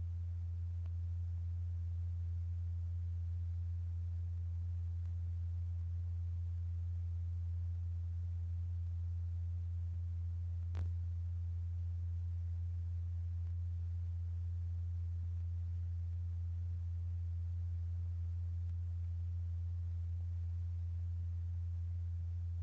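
Steady, unchanging low pure tone: the vibration signal exciting a liquid blob of heated kaolin. A single short click about eleven seconds in.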